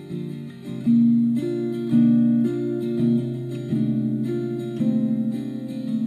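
Background music led by an acoustic guitar, with new strummed chords coming in about once a second.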